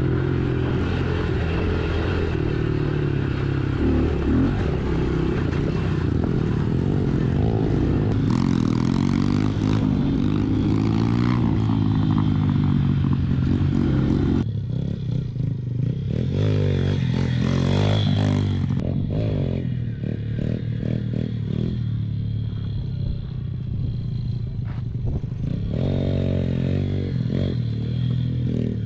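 110cc pit bike engine running and revving, its pitch rising and falling with the throttle, with clattering and scraping. About halfway through it turns quieter and more uneven.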